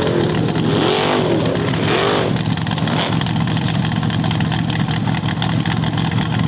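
Formula Offroad hill-climb car's engine revving hard in a few quick rising and falling surges. From about two and a half seconds in it holds at a steady high-revving run.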